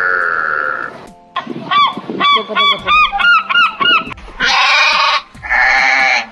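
Many short birdcalls that rise and fall in quick succession, after a long held call in the first second. Near the end come two harsh sheep bleats of about a second each.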